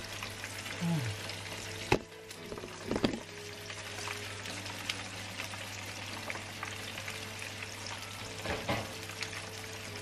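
A whole flour-dusted snapper and fry bread frying in vegetable oil, a steady sizzle with fine crackling pops. A sharp click sounds about two seconds in.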